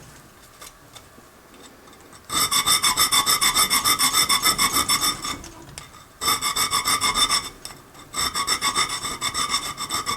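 Hand file working a steel knife blank in three runs of quick, short strokes, starting about two seconds in, with brief pauses around six and seven and a half seconds in. The strokes carry a steady metallic ringing from the steel.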